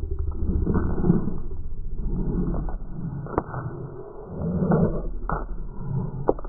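A pug galloping on paving stones, heard slowed down in slow motion: deep, drawn-out whooshes every second or so, with a few sharp clicks of claws on the stones.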